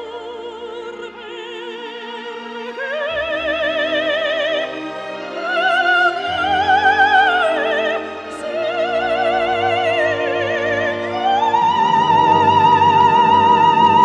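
Background music: an operatic voice singing with wide vibrato over instrumental accompaniment, climbing to a long held high note in the last few seconds.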